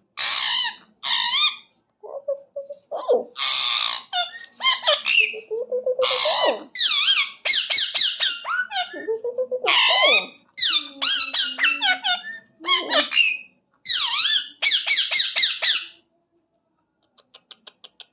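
Pet parrot squawking and screeching in a long, rapid series of harsh, warbling calls that stop about two seconds before the end.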